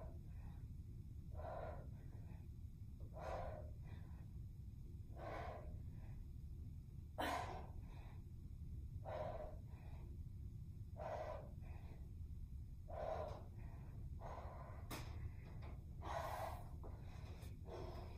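A woman's sharp, forceful exhales, one with each kettlebell swing, about every two seconds, over a low steady hum. One breath about seven seconds in is sharper and louder than the rest.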